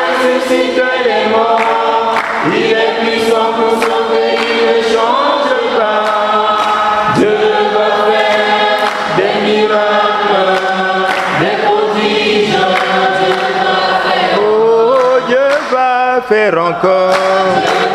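A choir sings a Christian praise song (louange) with a steady beat, the voices gliding through a sustained melodic line.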